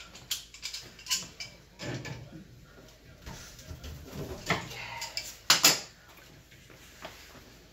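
Clicks, knocks and light metal clatter of tools and fittings being handled during a cooktop installation, with a close pair of sharper knocks about five and a half seconds in.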